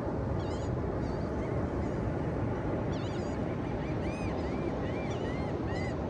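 Steady ocean surf washing on the beach, with birds giving many short, repeated calls over it, most of them in the second half.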